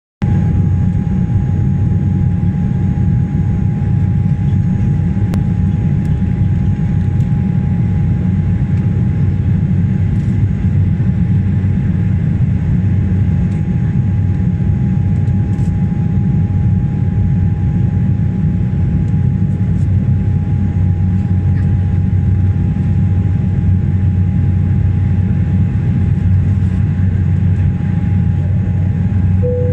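Airliner cabin noise in flight above the clouds: a loud, even rumble of engines and rushing air, with a faint steady whine held throughout.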